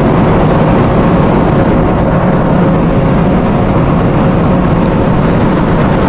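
Loud, steady drone of a berthed container ship's heavy machinery, with a faint constant hum running through it.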